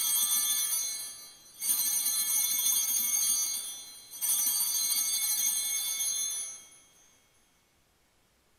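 Altar bells (Sanctus bells) rung three times, each a bright jangle of several high steady tones that fades over about two seconds, the last dying away about seven seconds in. The ringing marks the elevation of the consecrated host at Mass.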